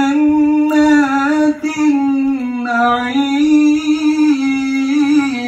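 A man's voice chanting Quran recitation in the melodic tajweed style, drawing out one word as a single long melismatic phrase: held notes that step gently up and down in pitch without a break.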